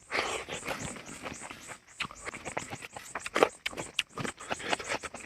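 Close-up eating sounds: irregular wet mouth smacks and chewing clicks, several a second.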